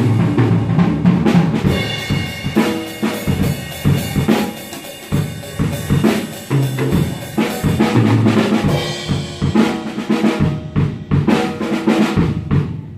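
Pearl drum kit being played: a fast groove of bass drum, snare and ringing cymbal hits that stops right at the end.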